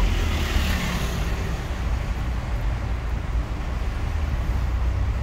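Steady low rumble of a camper van's engine and tyres, heard from inside the cab while driving in city traffic.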